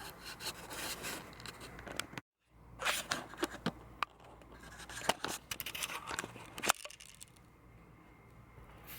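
Irregular clicks and scrapes of objects being handled on a workbench. The sound cuts out completely for a moment about two seconds in.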